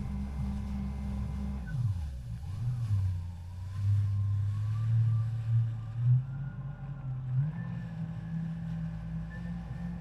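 Jet ski engine running, its pitch dropping sharply about two seconds in, wavering at a lower speed, then rising to a steady higher pitch near the end as the throttle changes.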